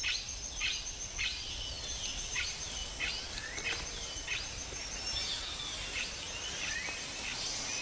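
Rainforest ambience: a bird repeating short chirps that fall in pitch, over a steady high insect whine.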